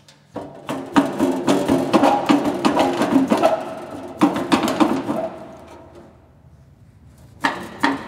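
Sheet-metal cabinet of an old P&H AC arc welder rattling and clanking as it is rocked by hand. It gives a quick, irregular run of metallic knocks with a ringing tone that dies down about five seconds in. Two sharp clanks follow near the end.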